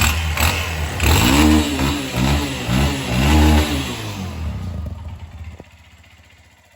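Yamaha Lander 250's single-cylinder engine revved up and down three times with a knock from the bottom end, the sign of a scored connecting-rod crank pin. The engine then dies away about five seconds in.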